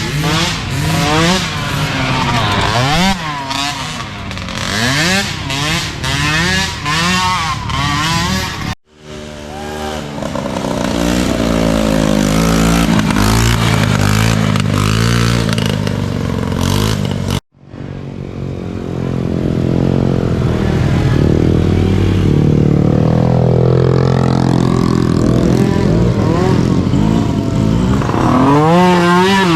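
Small youth ATV engines revving, their pitch rising and falling with throttle changes; several overlap in the first part. After two sudden cuts, a single engine runs at steady high revs.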